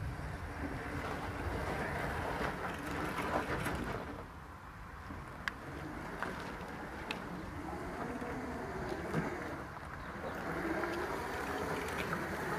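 Electric drive motors of a remote-controlled motorized couch whining as it drives and turns, its wheels rolling over gravel. The sound eases off in the middle and builds again near the end, with a few sharp clicks.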